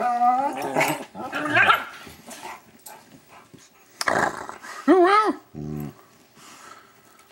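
Dogs yowling in their playful 'singing': several short calls that rise and fall in pitch, mixed with growls, a low growl just before six seconds in, then quieter near the end.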